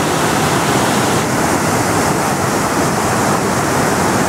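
Small waterfall rushing steadily over rock ledges into a pool.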